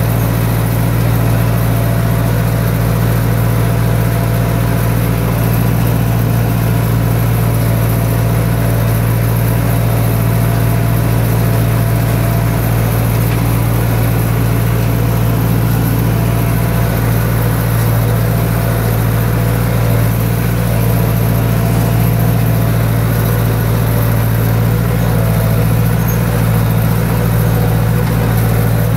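Engine running steadily with a constant low hum that does not change in pitch or loudness.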